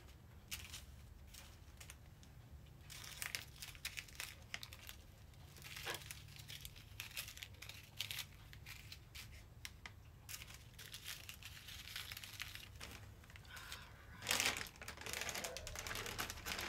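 Plastic crinkling and rustling as small zip bags of diamond-painting drills and a piece of clear plastic film are handled, with scattered light clicks and a louder crinkle near the end.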